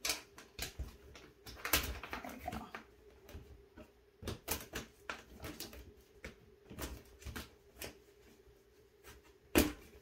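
Irregular plastic clicks, snaps and knocks as the clip-together panels of a white slatted plastic washer basket are handled and unclipped, with a louder clack near the end.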